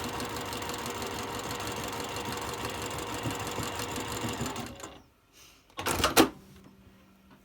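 Juki TL-2010Q straight-stitch sewing machine running steadily, stitching a quarter-inch seam through two pinned fabric strips, then stopping about five seconds in. About a second later comes a short, loud clack.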